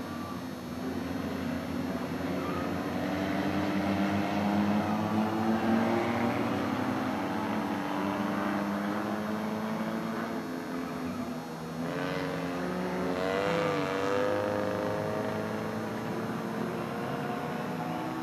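Several car engines revving and running together, pitches rising and falling as the cars slide and spin on steel skid plates fitted in place of their rear wheels. The engines rev hardest about four to six seconds in and again around twelve to fourteen seconds in.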